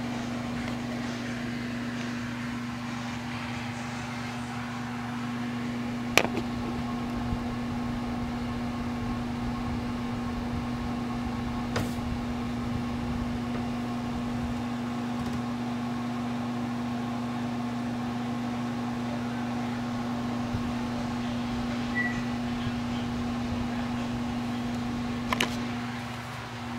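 A steady mechanical hum from a running appliance, with a few sharp clicks: one about six seconds in, one near the middle and a quick pair near the end.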